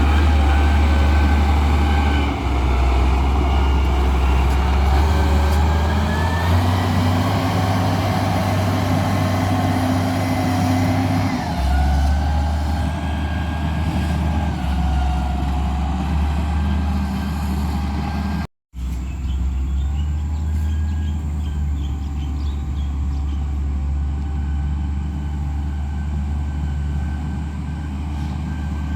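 Heavy diesel engine running under load, its note shifting up and down a few times, with a faint whine above it. The sound cuts out completely for an instant about two-thirds of the way in.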